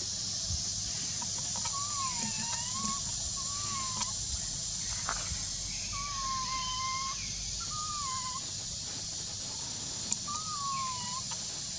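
Baby macaque giving about five short tonal coo calls, each under a second, with a wavering, arched pitch, over a steady high hiss.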